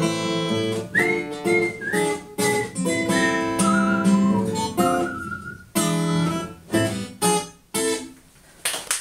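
Acoustic guitar playing the closing bars of a song: a run of strummed and picked chords with a few short breaks, then a last chord near the end.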